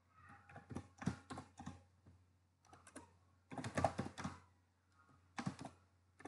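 Typing on a computer keyboard: several short runs of keystroke clicks separated by brief pauses.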